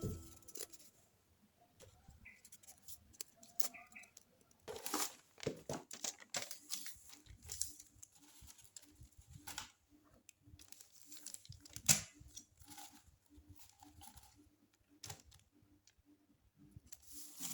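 Faint handling sounds of paper or plastic packaging: rustling, crinkling and tearing, with scattered small clicks and taps.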